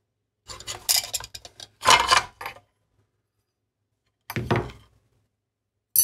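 Metal parts of a milling machine's power-feed joystick being handled and taken apart by hand: rubbing and clinking of small metal pieces. A burst of about two seconds, then a shorter one about two-thirds of the way through.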